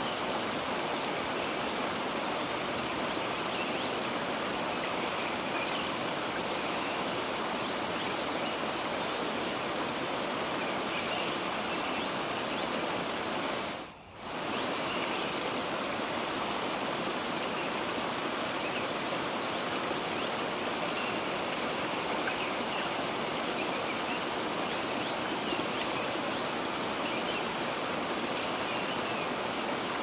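Outdoor ambience: a steady rush like running water, with many short, high bird chirps over it. The whole sound drops out briefly about fourteen seconds in, then resumes.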